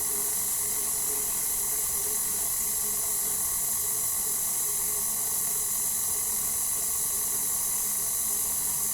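Electric stand mixer running steadily at low speed, its dough hook turning through flour, heard as an even high hiss with faint steady tones.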